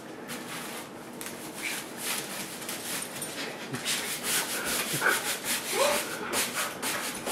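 A straw broom's bristles swishing and scraping across a hard floor in quick repeated strokes, with a dog giving a few short whines in the second half.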